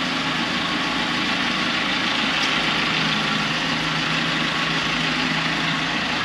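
Boatyard travel lift's engine idling, a steady drone.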